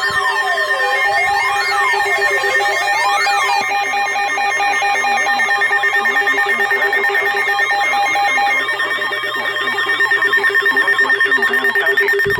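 Layered electronic emergency alert tones: a siren-like tone sweeping up and down about every second and a half over several steady, rapidly pulsed tones. After about nine seconds the sweep has long stopped and the sound turns to a fast pulsing warble.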